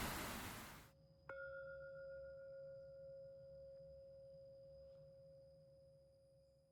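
Rushing waterfall noise fades out within the first second, then a single bell-like chime is struck about a second in and rings on, slowly dying away.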